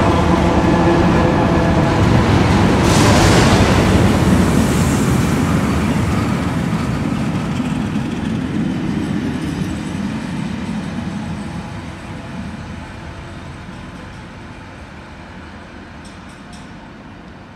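A diesel-hauled train passes close by. It opens with the steady pitched hum of a GL class diesel locomotive, then turns into the rumble and clatter of the following heritage 44 class diesel and carriages on the rails. The sound fades steadily as the train draws away.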